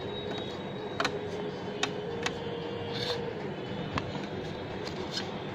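About four light, sharp clicks of plastic toy dishes being handled, over a steady hiss.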